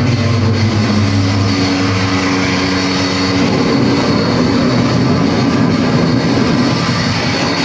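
Live noise music: a loud, dense wall of distorted noise over steady low droning tones that sounds like heavy machinery. One of the low tones drops out about three and a half seconds in.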